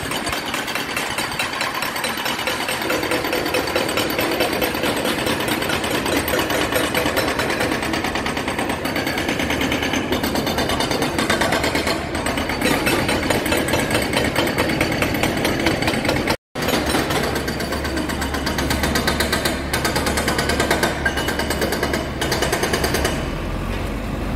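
Road breaker hammering rapidly and continuously, breaking up the road surface at tram-track roadworks. A low engine hum joins in the second half, after a momentary cut-out.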